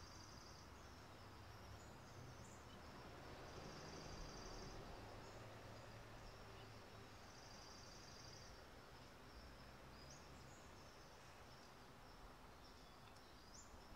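Faint outdoor ambience: a high, finely pulsed trill repeating about every four seconds, with a few short rising chirps, over a low steady hiss.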